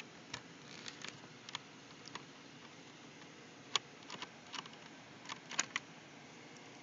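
Faint, scattered small clicks and ticks of a screwdriver turning small M2.5×3 screws out of an HP DV7 laptop's plastic bottom case. The sharpest clicks come about four and five and a half seconds in.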